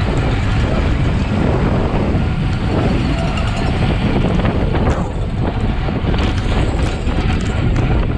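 Wind rushing over a bike-mounted camera's microphone as a road racing bike rides at speed, a steady loud noise, with a few short clicks and knocks from the bike about two-thirds of the way through.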